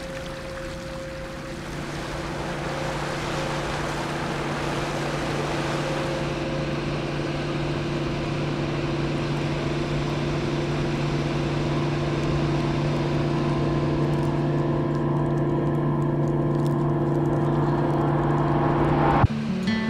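Background music: a held low drone that slowly swells over a rushing hiss, cut off suddenly near the end as strummed acoustic guitar comes in.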